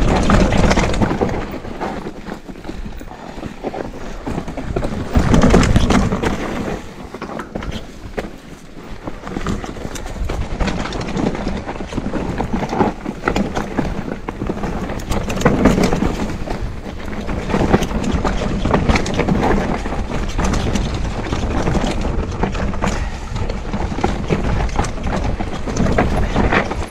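Enduro mountain bike descending a rough dirt and rock trail: tyres rolling and crunching over dirt and stones, and the bike rattling over bumps, swelling and easing with the terrain, with wind noise on the microphone.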